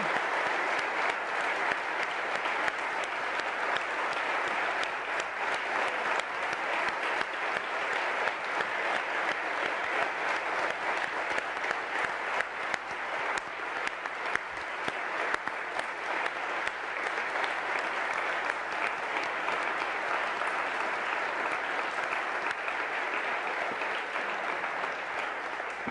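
A large audience applauding continuously in a hall, a long, even ovation that eases off near the end.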